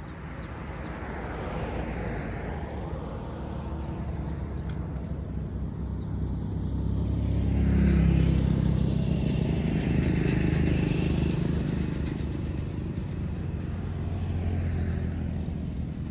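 Road traffic passing close by: vehicle engines and tyres swell and fade. The loudest vehicle goes by about eight seconds in, and another passes near the end.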